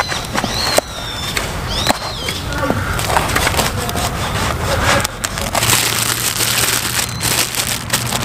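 A large knife sawing through a crusty loaf of bread on a wooden cutting board, the crust crackling and crunching under repeated short strokes.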